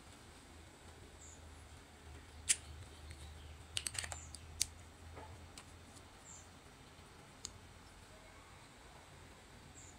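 A few sharp, light clicks and taps over a low steady hum, with a quick cluster of clicks about four seconds in.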